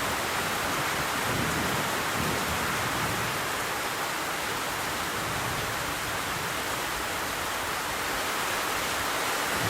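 Steady rain falling, an even hiss of drops. A faint low rumble of distant thunder sounds between about one and three seconds in.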